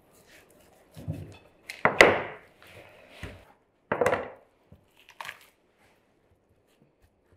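A raw whole chicken being cut up with a kitchen knife on a wooden cutting board: about five separate chops and cracks, the loudest about two seconds in.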